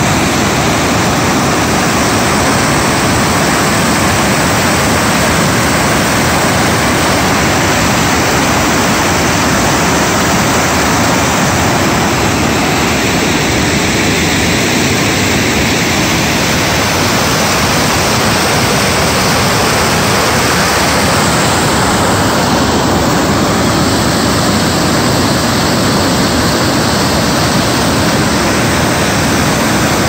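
River rapids rushing over rocks in a loud, steady wash of whitewater.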